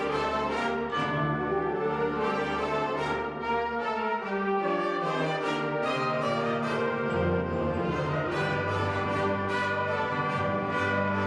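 High school wind ensemble playing held chords, with brass to the fore. The low bass notes drop out for a few seconds in the middle and then come back in.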